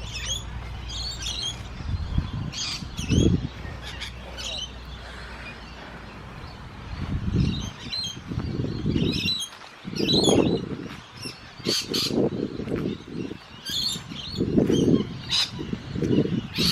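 Birds chirping repeatedly in short, high calls. From about seven seconds in, gusts of wind buffet the microphone with low rumbles.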